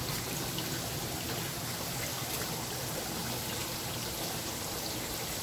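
Steady trickling and running of water into fish-farm vats fed by a continuous automatic water change.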